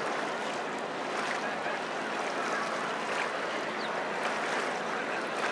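Steady wash of wind and water noise on a boat, with a faint low hum underneath.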